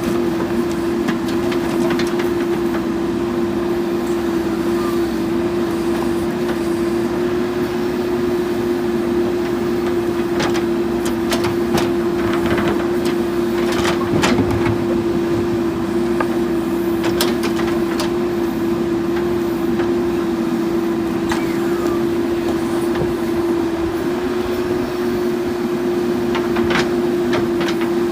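JCB 3DX backhoe loader's diesel engine running steadily under work, with a constant hum, and scattered sharp clanks and knocks from the digging.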